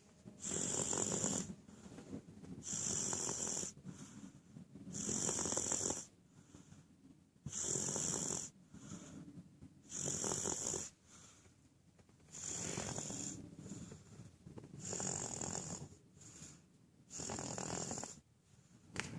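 A baby snoring in steady, even breaths, one snore about every two and a half seconds, eight in all, with quieter breathing between them.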